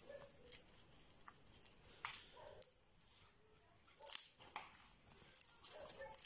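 Fluffy homemade slime being stretched, folded and squeezed by hand, giving soft sticky crackles and clicks as it pulls apart, with a few louder pops about two and four seconds in.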